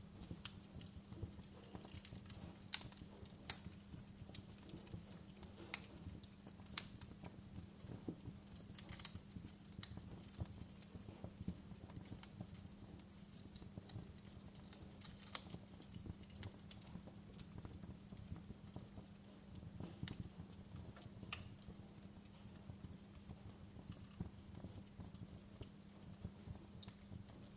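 Wood fire crackling: irregular sharp pops and snaps, a few of them louder in the first seven seconds, over a low steady hum.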